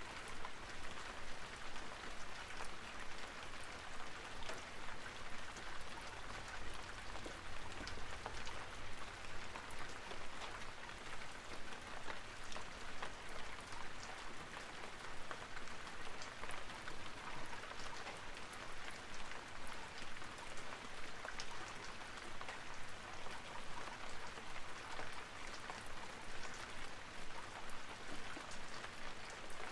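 Steady rain: an even hiss dotted with many small drop clicks.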